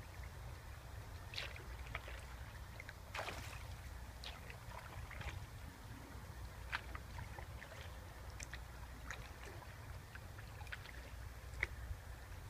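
Canoe being paddled on calm water: soft paddle strokes, water dripping off the blade and small clicks on the hull, with a fuller splash about three seconds in, over a low steady rumble.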